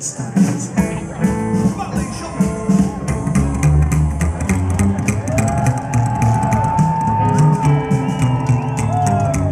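Live rockabilly band playing an instrumental break: electric guitar lead with long, bending notes over steady drums and bass.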